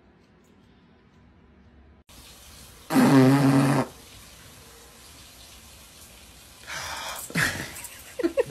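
A loud buzzing raspberry, lips blown against a dog's fur, lasting about a second. A few shorter scuffling and vocal sounds follow near the end.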